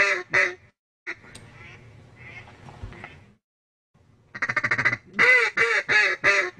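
A duck quacking in a quick run of loud, evenly spaced quacks that drop in pitch. The run ends just under a second in, with faint noise after it, and starts again about four and a half seconds in.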